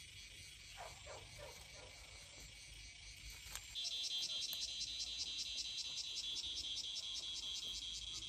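Insects trilling outdoors in a high, rapidly pulsing chorus that grows much louder about four seconds in. A few faint kitten mews come about a second in.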